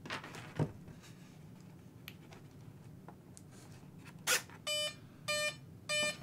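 Handling clicks as a battery connector is pushed home, then three short electronic beeps about 0.6 s apart: the electronic speed controllers' start-up tones as the twin-motor electric RC plane powers up.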